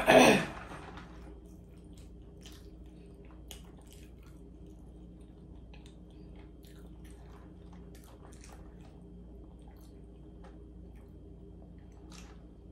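Close-up eating and drinking mouth sounds: scattered small clicks and smacks of chewing and sipping through a straw, over a low steady hum. A brief loud burst comes right at the start.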